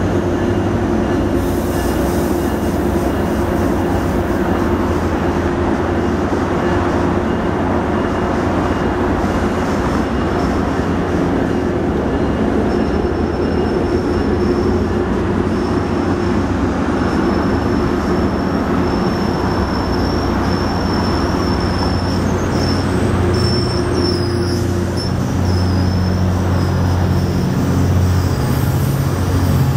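Metrolink bilevel passenger coaches rolling past close by, with a steady rumble of steel wheels on the rails. A thin, high wheel squeal comes and goes through the middle, and the low rumble grows heavier near the end.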